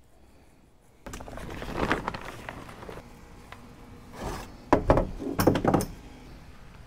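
Handling noise: a rustling, shuffling sound starting suddenly about a second in, then a cluster of loud, sharp knocks and thumps about five seconds in.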